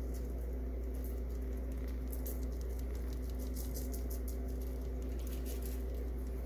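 Cayenne pepper shaken from a spice container, the granules pattering onto raw chicken thighs on a foil-lined tray in quick, irregular little ticks. A steady low hum runs underneath.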